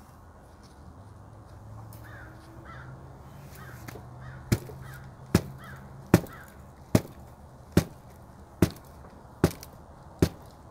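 A tall ceramic flowerpot of freshly potted succulent being knocked down on a tabletop over and over, a sharp knock about every 0.8 seconds, starting about four seconds in. The tapping settles the loose potting soil so that it sinks down in the pot.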